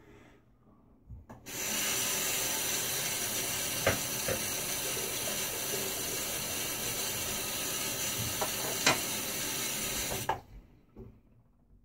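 Bathroom tap running into the sink for about nine seconds, turned on a second and a half in and shut off suddenly near the end, with a few light knocks while the water runs.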